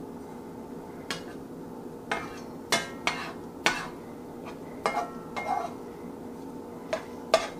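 Metal spatula clinking and scraping against a nonstick skillet as ramen noodles are pushed and pressed into shape: about ten irregular, sharp taps with a short metallic ring, over a steady low hum.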